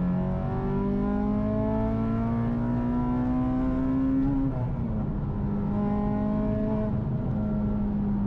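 Acura RSX Type S's K20 four-cylinder engine through its loud aftermarket exhaust, accelerating hard, its pitch rising steadily for about four seconds. The pitch then drops at a gear change, climbs again briefly and holds steady.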